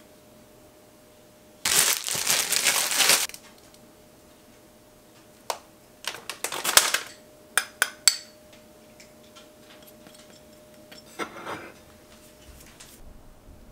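Hand-garnishing sounds: a squeeze bottle of Kewpie mayonnaise squirting for over a second, then plastic packaging rustling with a few sharp clicks and taps, and a brief scrape near the end. A faint steady hum runs underneath.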